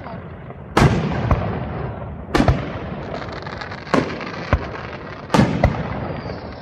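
Aerial firework shells bursting close overhead: four loud booms about a second and a half apart, each trailing off in an echo, with smaller pops in between.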